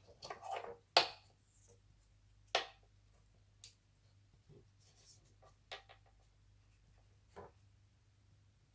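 Light, scattered clicks, taps and rubbing of hard laptop parts being handled as a replacement motherboard is fitted into the chassis. The sharpest click comes about a second in, with a few fainter ones spread through the rest.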